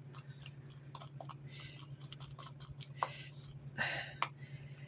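Faint, sticky clicks and soft scraping of a utensil stirring a thick, wet egg-yolk face-mask paste in a plastic bowl, with one sharper click about three seconds in and a brief soft rustle near four seconds.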